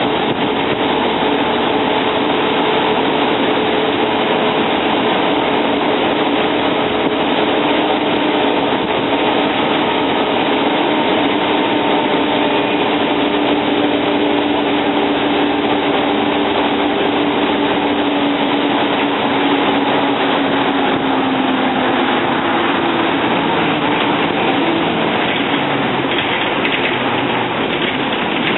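Volvo Olympian double-decker bus heard from on board, its Cummins L10 diesel engine and ZF 4HP500 automatic gearbox running steadily on the move, with a few whining tones over the engine noise that sink slightly in pitch past the middle.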